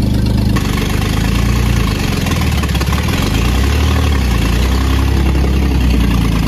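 Old carburetted petrol truck engine, just revived after years abandoned, running with its pitch dipping and rising as the revs change.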